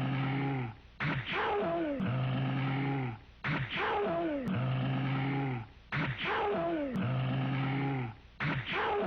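A cartoon sneeze sound effect looped over and over, four times in a row, each about two and a half seconds apart. Each sneeze starts sharply, falls in pitch, and ends in a long, steady, low held part.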